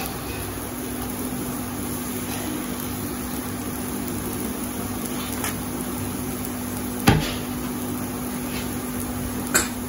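A steady low electrical hum, with a few knocks of a steel cup against a dosa tawa as batter is spread and the cup is set aside: the loudest knock about seven seconds in, a lighter one near the end.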